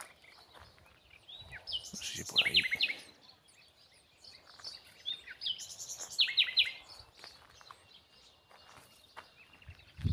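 A small songbird singing: two short twittering phrases about four seconds apart, each ending in a quick run of repeated notes.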